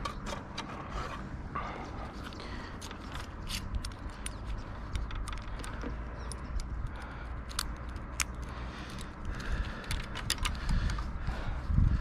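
Scattered clicks, ticks and scrapes of a fiber drop cable and its pole hardware being handled by gloved hands, over a low steady rumble.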